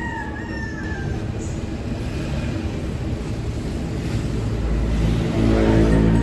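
A motor vehicle's engine running, growing louder toward the end, with a rooster crowing briefly at the start.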